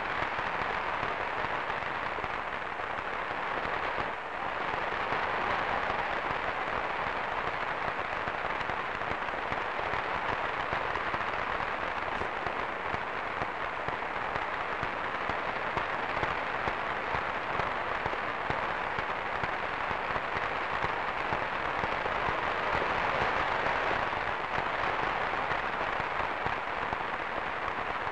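Large crowd applauding, a dense, even clatter of many hands clapping, dipping briefly about four seconds in and swelling slightly near the end.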